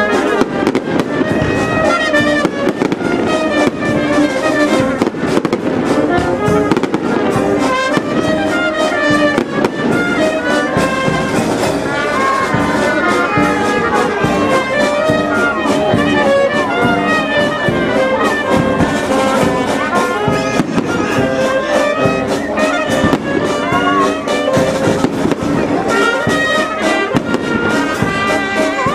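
Fireworks crackling and banging in quick, dense succession, with brass band music playing a melody throughout.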